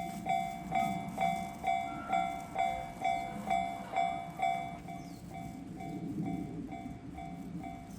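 Japanese railway level-crossing warning bell ringing steadily, about two strikes a second, with a low rumble underneath. About halfway through, the strikes become less pronounced.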